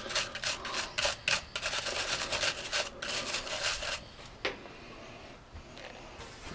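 Small brush, such as a toothbrush, scrubbing the lint-clogged intake screen of a hair dryer in quick rasping strokes for about four seconds, then a single light click. The brushing clears the built-up lint and dirt that cut the dryer's airflow and make it run too hot.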